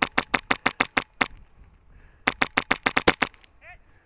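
Airsoft rifle firing quick strings of sharp shots, about seven a second: about eight shots, a single shot a little after a second in, then another string of about eight from just over two seconds in.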